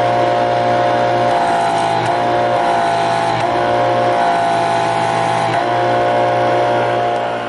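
Kodiak 4000R electric pressure washer running, a steady vacuum-like hum whose pitch dips briefly a few times as the load changes while the gun's trigger is worked.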